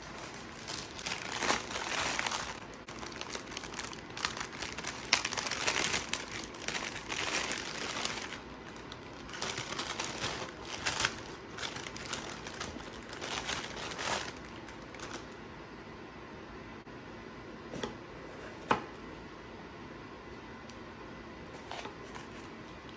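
Clear plastic produce bag crinkling and rustling in repeated bursts as bell peppers are pulled out of it, for about the first fifteen seconds. Later come two sharp knocks a second apart.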